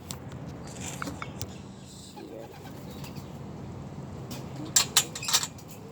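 Pet birds scuffling in an enclosure: a quick run of wing flaps about three-quarters of the way through, as one bird goes at another, over faint background noise.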